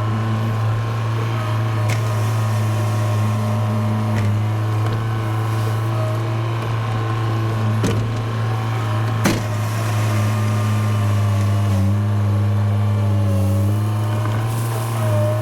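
A heavy machine's engine running steadily, its pitch dipping briefly under load a couple of times, with two sharp knocks about eight and nine seconds in.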